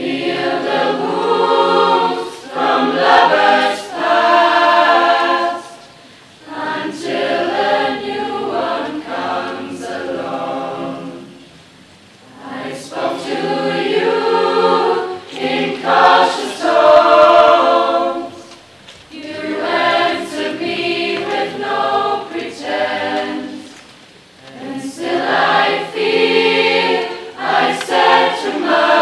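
Mixed choir of girls' and boys' voices singing unaccompanied, in phrases of about five to six seconds, each followed by a short breath-pause.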